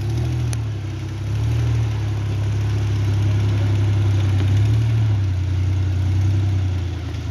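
Off-road 4x4's engine running steadily at low revs, swelling slightly in the middle.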